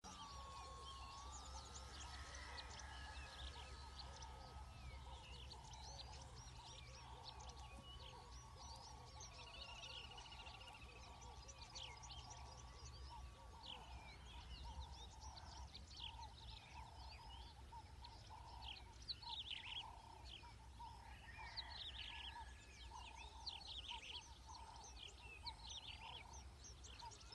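Wild birds chirping and calling in a busy chorus over a low rumble. A faint thin steady whine, the RC floatplane's electric motor, rises at the start and holds until about halfway, then stops.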